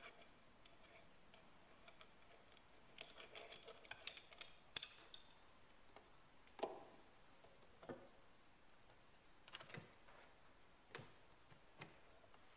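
Faint clicks and light metal clinks of Kitagawa QCRL collet chuck parts and tools being handled during disassembly. There is a quick cluster of small clicks about three to five seconds in, then single knocks every second or two.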